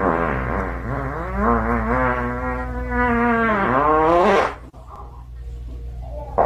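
A long, buzzy voice-like call that wavers in pitch, holds steady through the middle, rises near the end and stops about four and a half seconds in.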